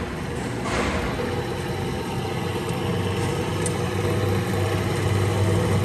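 Redco welding positioner's power-rotation drive running, a steady motor and gearbox hum with a brief rush of noise about a second in.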